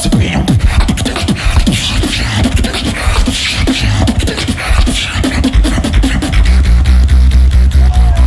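Live beatboxing into a handheld stage microphone: fast clicks and snares over deep kick drums that fall in pitch, with a heavy held bass coming in about six seconds in.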